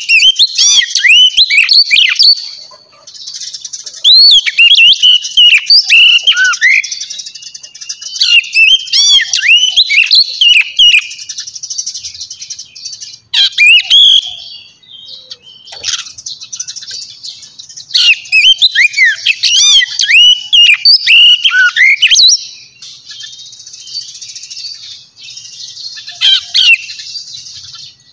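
A small songbird singing: bursts of quick chirps and warbled whistled notes in phrases of a few seconds, with short pauses and stretches of buzzy trilling between them.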